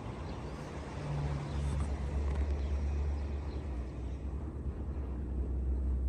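Wind buffeting the microphone: a steady, uneven low rumble under a broad rushing haze.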